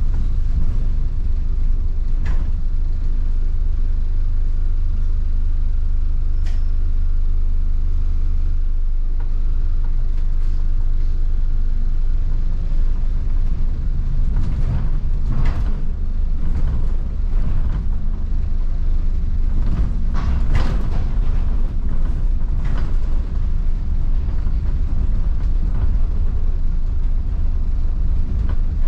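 Inside the upper deck of a New Routemaster diesel-electric hybrid double-decker bus on the move: a steady low rumble of the drivetrain and road. Occasional clicks and rattles from the body and fittings come in small bunches about halfway and two-thirds through.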